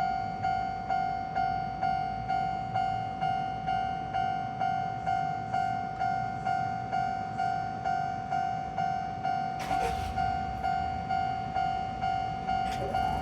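Japanese level-crossing warning bell ringing steadily, a single electronic 'kan-kan' tone struck a little over twice a second, over a low rumble. A brief hiss cuts in about ten seconds in.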